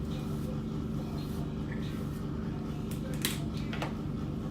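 Hair being combed and handled, with a few light clicks about three seconds in, over a steady low hum.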